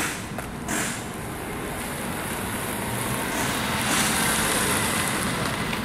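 A sedan driving slowly past on asphalt. Its tyre and engine noise builds to a peak about two-thirds of the way through, then eases off.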